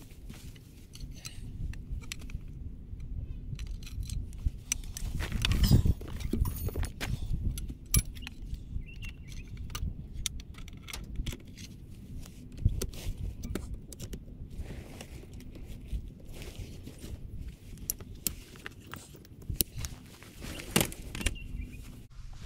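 Metal tent poles and fittings clicking and rattling as a stretcher-bed swag is put up, with footsteps on dry grass, over a low rumble. The loudest knocks come about six seconds in.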